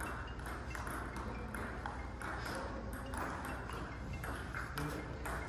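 Table tennis balls clicking sharply off paddles and the table, several irregularly spaced clicks, over a steady low hum.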